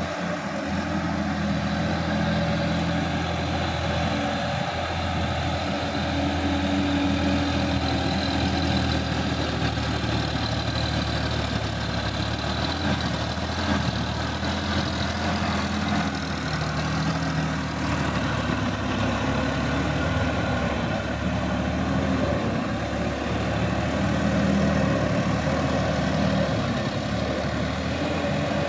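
Sonalika DI-50 RX tractor's diesel engine running steadily as the tractor works through a flooded paddy field with a rear implement.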